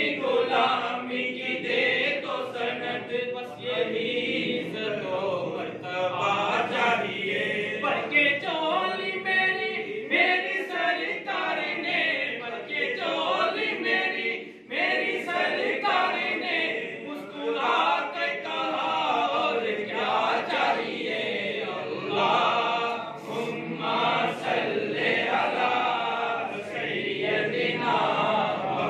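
Men's voices chanting together unaccompanied in a devotional recitation, running on with a brief break about halfway.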